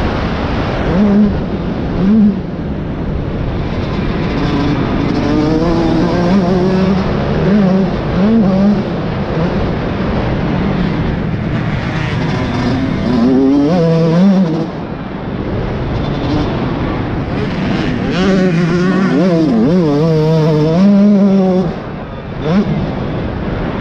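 Motocross bike engine heard close up from on board, revving hard and falling back again and again as the rider works the throttle and gears round the dirt track, with a short drop-off about two-thirds of the way through and again near the end.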